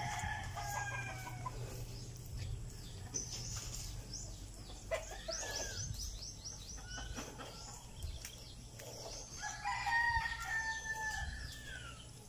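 Gamefowl roosters crowing more than once, with one long crow near the end.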